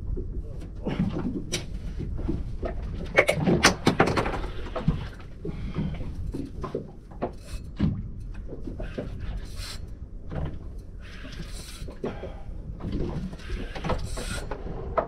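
Irregular knocks, bumps and clatter of gear being handled aboard a small boat, with a few short bursts of hiss.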